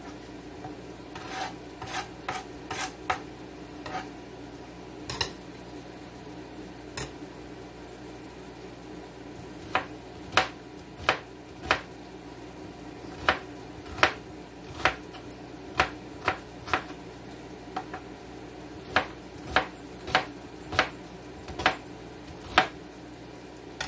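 Kitchen knife slicing an onion on a plastic cutting board: sharp knocks of the blade striking the board. A few come scattered at first, then a steady run of roughly one cut a second from about ten seconds in.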